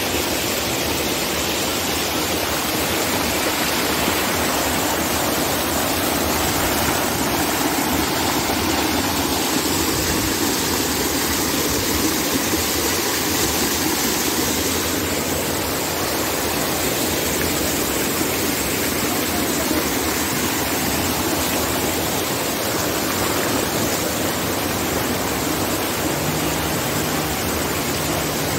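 Steady rush of running water in a natural hot-spring stream.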